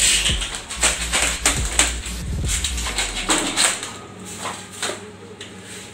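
A run of knocks, clicks and rustles from work materials and bags being handled. They come thickest in the first three seconds, over a low hum that fades out about three seconds in.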